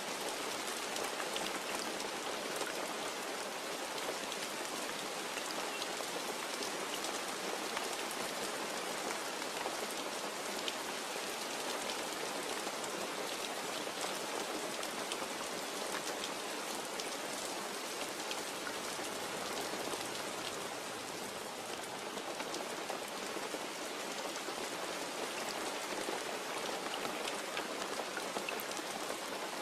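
Steady rain falling, a constant hiss with many small, sharp drop hits scattered through it.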